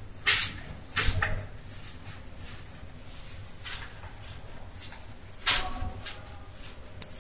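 Surgical scrub sponge-brush rubbed over soapy hands and between the fingers: about six short scrubbing strokes, unevenly spaced.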